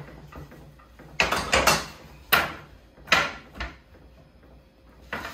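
A metal baking sheet clattering and knocking as it is set down and shifted on a tiled countertop. There is a quick cluster of sharp knocks about a second in, then single knocks at about two, three and three-and-a-half seconds, and one more near the end.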